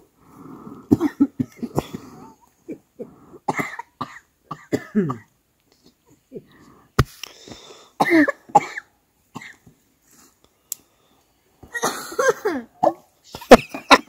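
People coughing in short bursts, with murmured voices between, and a single sharp click about seven seconds in.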